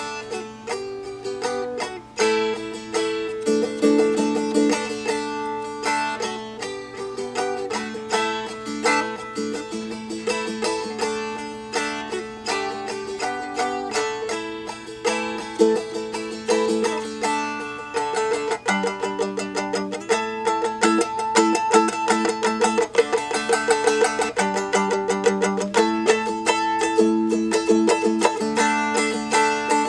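Seagull Merlin, a four-string dulcimer-style instrument tuned D-A-D-D, strummed and picked through a chord progression, with the open D strings droning under the changing notes.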